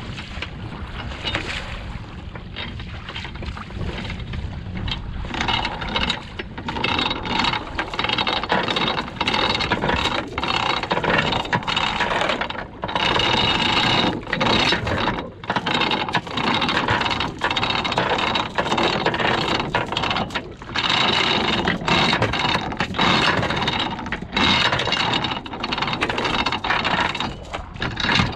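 Anchor chain rattling over a boat's bow roller as the anchor is hauled up by hand. It comes in a run of uneven pulls with short breaks, louder from about five seconds in.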